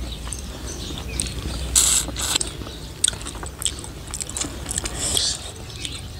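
Close-up eating sounds: chewing and smacking with many short mouth clicks and a couple of louder wet bursts.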